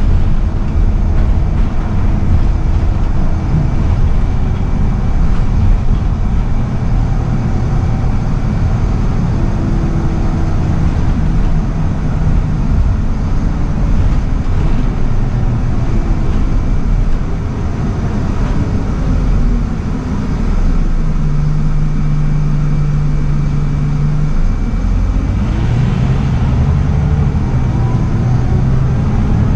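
Scania L94UB bus's rear-mounted nine-litre five-cylinder diesel, heard from inside the saloon while driving. The engine note shifts pitch with gear changes, eases off a little past halfway, and climbs in pitch near the end as the bus pulls harder.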